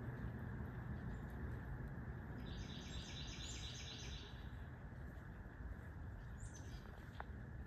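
A small bird calling: a fast series of high, evenly repeated notes lasting about two seconds, then a single short high note later on, over a steady low background rumble.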